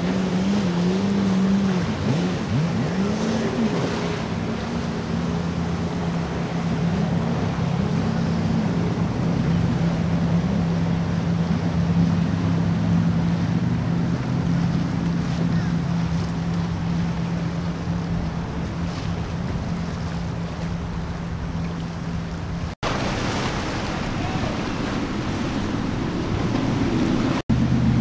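Sportfishing convertible boats' inboard engines running with a steady low drone over the splash and wash of churned water and waves. The engine pitch wavers a little in the first few seconds, and the sound cuts out briefly twice near the end.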